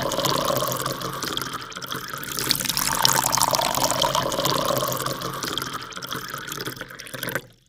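Rushing, splashing water sound effect. It dips about two seconds in, swells again, then fades and cuts off suddenly near the end.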